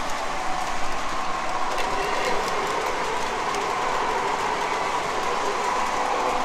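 O gauge model trains running on a layout: a steady whirring of motors and wheels on the track, with faint rapid ticking and a held tone.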